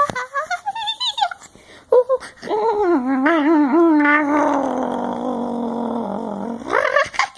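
A voice making drawn-out, howl-like noises: a few short rising squeals, then a wavering wail that settles into a long, rough held note and ends with a quick upward squeal.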